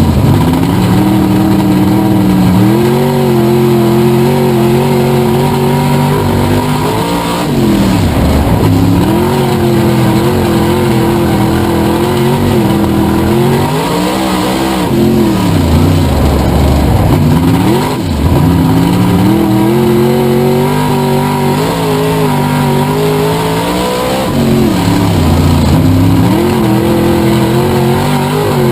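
Race car engine running hard, its revs dropping and climbing again several times.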